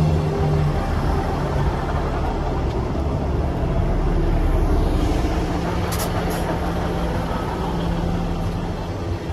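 Scotrail Class 158 diesel multiple unit passing close by, its engine humming steadily over the rumble of wheels on the rails. Two brief sharp high sounds come about six seconds in.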